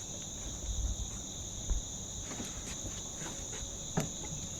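Steady chorus of crickets holding two continuous high-pitched tones, with a few low thumps about a second in and a sharp knock near the end.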